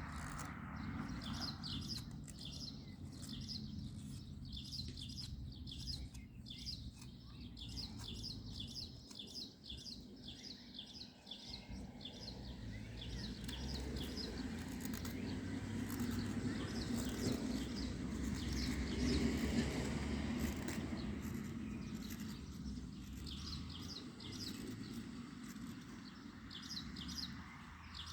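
Small birds chirping in quick, repeated short calls, over a low, steady background noise that grows louder in the middle.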